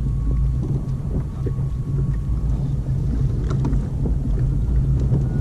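Wind rumbling steadily on the action camera's microphone out on open sea, with water lapping against the kayak and a few light knocks about three and a half seconds in.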